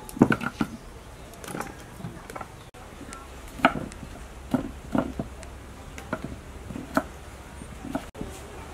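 Knife slicing peeled young bamboo shoots on a thick round wooden chopping board: a dozen or so irregular knocks as the blade goes through the shoot and hits the wood.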